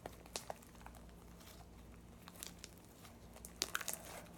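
Homemade slime being worked by hand: faint sticky clicks and small pops, with a quick cluster of them near the end.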